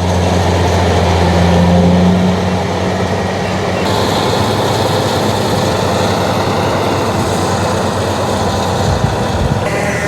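Rice combine harvester working in the field: its engine and cutting and threshing machinery make a loud, steady mechanical noise, with a strong low hum that fades back about two and a half seconds in.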